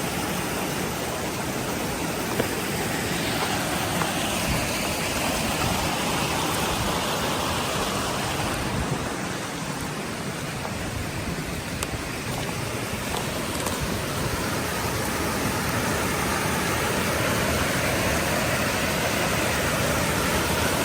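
Alpine creek water rushing steadily, a continuous even noise without any pauses.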